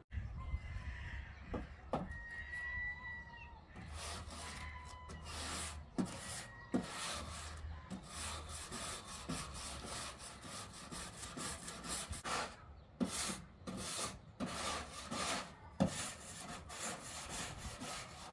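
A small weeding brush scrubbing wooden decking in repeated back-and-forth strokes, working dirt up out of the grooves between the boards.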